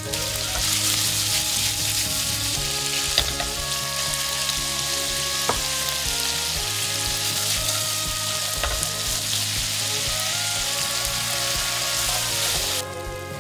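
Diced pork belly sizzling hard in hot oil in a frying pan as it is stir-fried with a wooden spatula, with a couple of light clicks along the way. The sizzle cuts off suddenly near the end.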